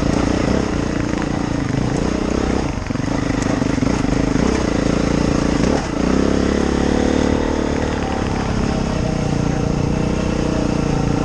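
Off-road motorcycle engine running as it is ridden along a rough trail, the throttle rising and falling. The engine pitch drops briefly about three seconds in and again near six seconds, then holds steadier.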